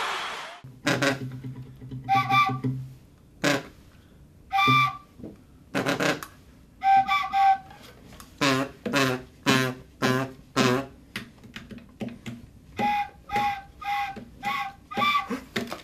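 Short toots on a small wooden flute, a couple of dozen separate notes: sparse at first, then about two a second from around the middle. Some notes are clear and piping; others are buzzier, from a small wind noisemaker blown alongside.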